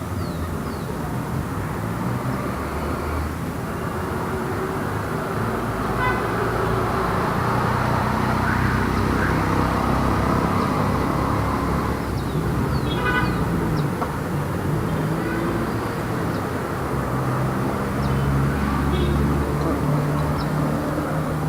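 Light city street traffic: cars and engines passing steadily, swelling and easing as vehicles go by, with a short horn toot about two-thirds of the way through.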